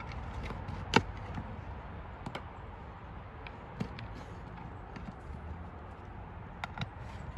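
A few sharp clicks and taps of hands handling a plastic light-fixture mounting base and its wires, the loudest about a second in, over a steady low background noise.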